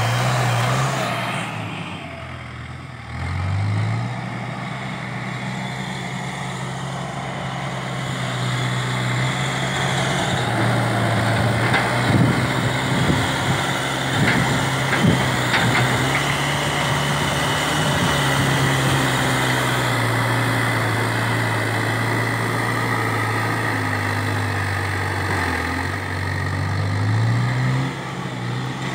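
Backhoe loader's diesel engine running under load, its revs dipping about two seconds in and again near the end, then rising back up. A few sharp knocks and scrapes come in the middle as the front bucket digs into the soil.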